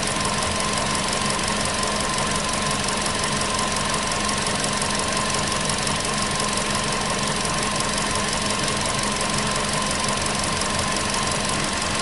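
Volkswagen Polo Sedan's 1.6-litre CFNA four-cylinder petrol engine idling steadily and running rough. The owner says it no longer knocks on a cold start.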